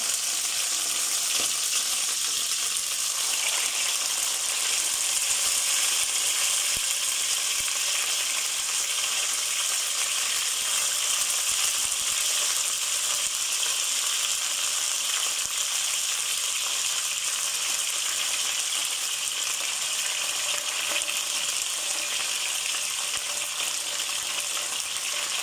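Chunks of marinated beef searing in hot oil in a square nonstick pan: a steady high sizzle, with a few faint clicks as more pieces are laid in.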